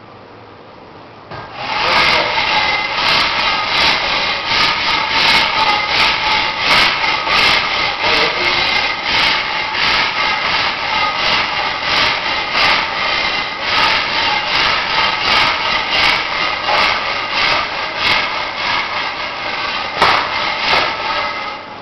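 A machine running steadily and loudly, its noise peppered with irregular clicks; it starts about a second and a half in and stops near the end, with one sharper click shortly before it stops.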